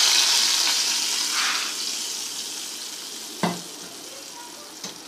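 Hot ghee with cumin seeds poured onto yogurt raita as a tadka, sizzling loudly at first and dying away over a few seconds. A single knock about three and a half seconds in.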